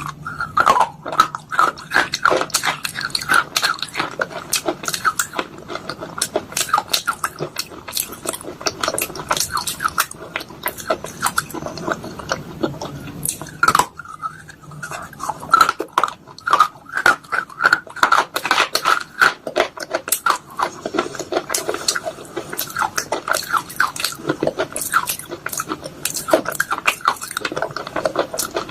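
Soaked pieces of baked clay pot and slate crunching and crackling, a rapid irregular run of sharp little cracks with a brief lull about 14 seconds in.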